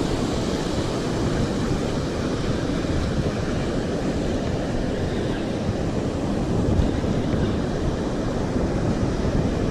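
Steady rush of ocean surf breaking on the beach, with wind buffeting the microphone.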